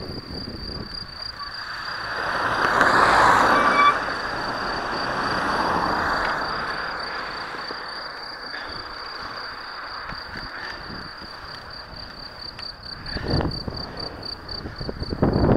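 Riding sound picked up by a bicycle-mounted action camera on an asphalt road: wind rushing over the microphone and tyre noise, with a steady high-pitched whine throughout. A louder swell builds from about two seconds in and cuts off sharply at about four seconds, and low wind gusts return near the end.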